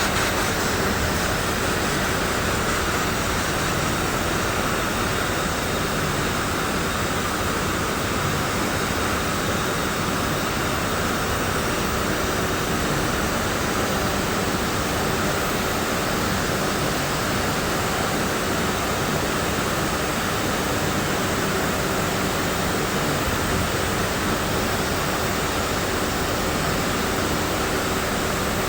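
Steady, loud noise of heavy industrial machinery in an ash-handling plant: a constant rush with a faint steady hum, unchanging throughout.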